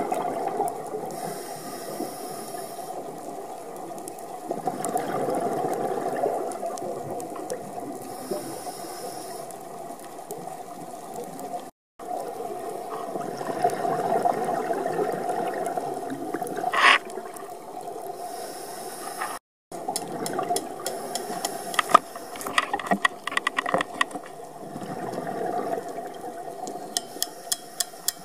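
Underwater sound picked up by a diving camera: a steady muffled water wash with slow swells. It cuts out briefly twice, and a quick run of sharp clicks comes in the last few seconds.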